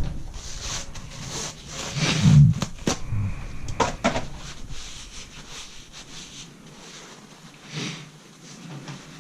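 Handling noise from a disassembled manual transmission: a few sharp clicks and knocks of metal parts, such as the gears, being moved and set down, with some rustling between them.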